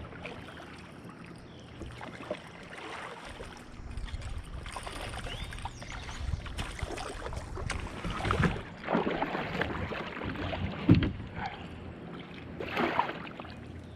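Water splashing and sloshing in irregular bursts as a hooked fish is brought to hand, over a faint steady low hum.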